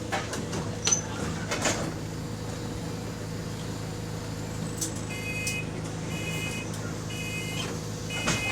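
A bus's engine runs steadily with a low hum inside the cabin, with a few knocks in the first two seconds. From about five seconds in, the electronic door warning beeps repeatedly, in short bursts a little faster than once a second.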